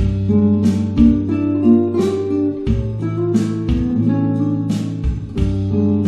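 Background music: an acoustic guitar playing picked and strummed chords, a new chord struck every second or so.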